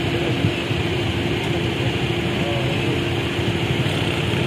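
Motorcycle and scooter engines idling in a waiting crowd: a steady low rumble with a constant tone over it and faint voices in the background.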